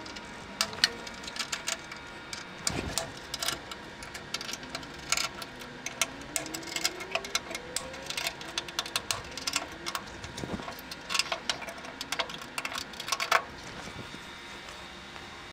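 Grooved ball-bearing wheels of a tape-library robot carriage rolling along a hardened-steel linear rail as it is moved by hand: an irregular run of clicks and rattles, with a few faint rising whines from the rollers.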